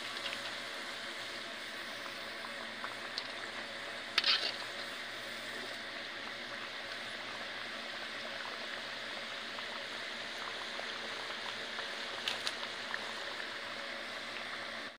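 Hot oil sizzling steadily in an iron kadai as rings of dough deep-fry, with brief clicks about four seconds in and again near the end.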